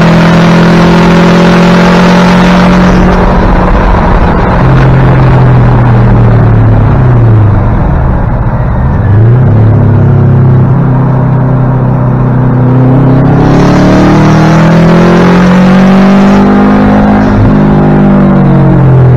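Race car engine heard from inside the cabin, running hard at steady revs. About halfway through, the pitch falls and dips several times as the car slows. It then climbs again as the car accelerates, with a gear change near the end.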